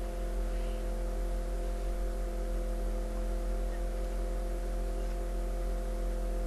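Steady electrical mains hum with a few constant higher tones over faint hiss, unchanging throughout; the recording setup's background noise, with no other sound.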